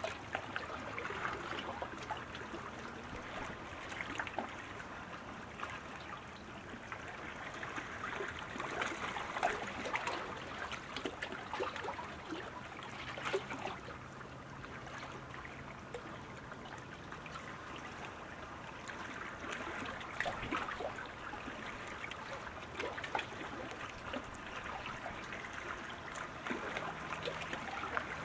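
Sprint kayak paddles splashing through the water: a steady trickling wash with many small splashes.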